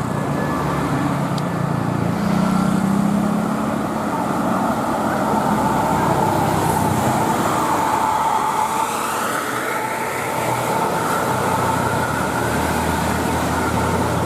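Road traffic passing on an uphill road: a bus engine running low near the start, then steady road noise with a held whine as vehicles go by.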